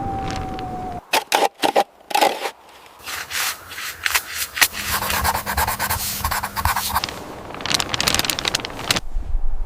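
Rubbing and scraping, in short irregular strokes that run together into a denser stretch in the middle.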